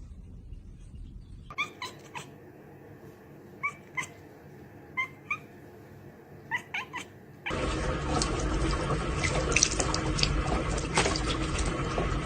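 A cat giving short, pitched chirping mews, mostly in pairs, then, after an abrupt cut, a steady rushing noise with scattered clicks and knocks.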